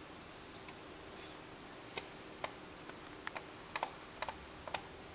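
A dog licking out a clear plastic yogurt parfait cup and nosing it around on a rug. Scattered sharp plastic clicks and taps come from about two seconds in, bunching together and loudest in the second half.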